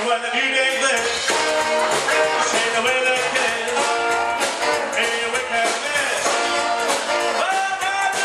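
Live 1950s-style rock'n'roll band playing a jive number with a steady beat, upright double bass and electric guitar.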